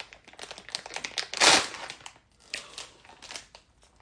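Crinkly packaging of a Labubu blind box being handled and torn open: a run of crackles, with one loud rip about one and a half seconds in.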